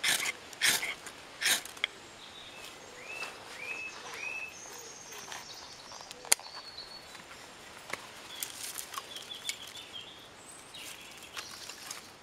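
A campfire being lit under paper tinder: three short, loud scraping strikes in the first two seconds. Then woodland birds call, one giving three upward-sweeping calls in a row, and twigs rustle as kindling is piled on near the end.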